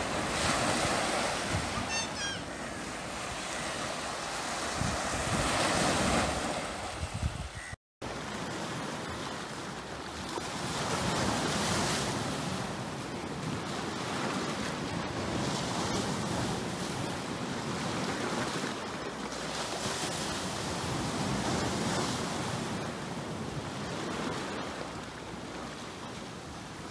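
Sea waves breaking and washing up the shore, swelling and easing every few seconds, with wind buffeting the microphone. The sound cuts out for an instant about eight seconds in.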